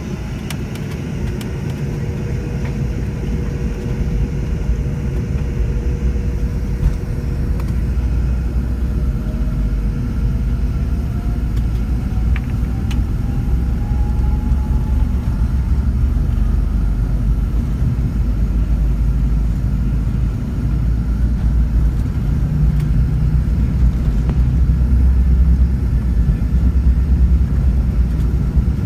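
Cabin noise of a McDonnell Douglas MD-80 jetliner during takeoff: a low rumble from the rear-mounted jet engines and the airframe that grows gradually louder, with a faint tone gliding upward in pitch for several seconds in the first half.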